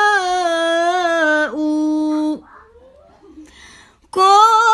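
A woman singing an Arabic sholawat solo, drawing out one long melismatic note that steps down and holds before breaking off about two and a half seconds in. After a short pause she starts the next phrase near the end.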